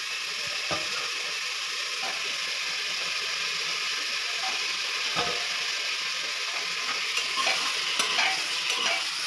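Chopped cauliflower, potato and carrot frying in hot oil with onions and spices in an open pressure cooker, with a steady sizzle. A spoon stirs and knocks against the pot, more often near the end.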